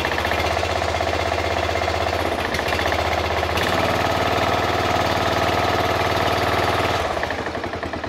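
A Briggs and Stratton Intek 16 hp single-cylinder overhead-valve engine running just after starting on a new carburetor, with a knock that the mechanic takes for a pretty bad rod knock. The engine note shifts a little past three seconds in and falls off in level near seven seconds.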